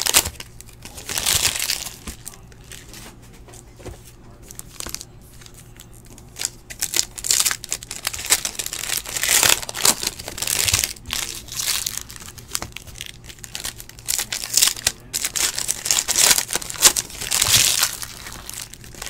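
Foil trading-card pack wrapper crinkling as the cards are pulled out, with the cards rustling as they are flipped through and dealt onto piles by hand. It comes in irregular bursts, loudest about a second in and again around the middle and near the end, with quieter stretches between.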